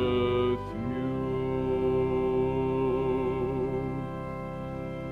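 Sung blessing: a man's voice holding a long final note with vibrato over sustained organ chords. The chord changes about a second in.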